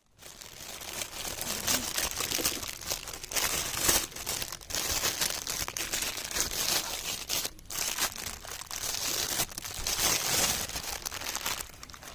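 Dense crinkling, rustling noise that starts abruptly, with two brief breaks partway through.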